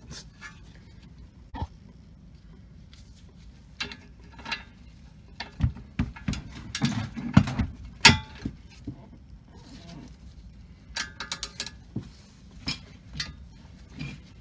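Metal clinks and knocks of a socket and long ratchet being fitted onto steel caliper bracket bolts, with a quick run of ratchet pawl clicks about 11 seconds in.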